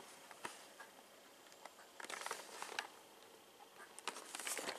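Cardboard box being handled and turned over in the hands: faint rustling and scraping with scattered light clicks, a little louder about two seconds in and again near the end.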